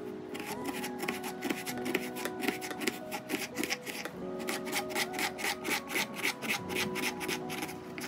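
Kitchen knife dicing an onion on a wooden cutting board: quick, rhythmic strokes, several a second, with a short pause about halfway. Soft background music with held notes underneath.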